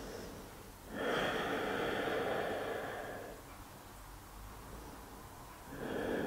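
A woman breathing slowly and audibly through the nose: one long breath beginning about a second in and fading over a couple of seconds, then another beginning near the end.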